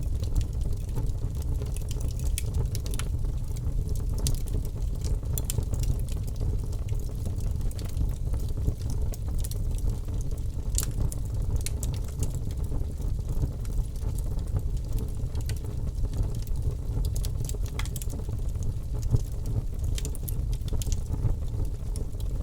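Wood fire burning in a fireplace: irregular crackles and pops over a steady low rumble.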